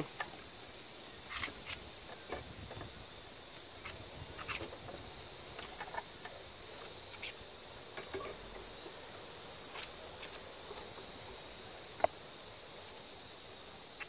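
Copper Mine Model 102 handheld copper wire stripper, with insulated wire being pulled through its blade by hand: faint scattered rustles and clicks, and one sharp click about twelve seconds in, over a steady high hiss.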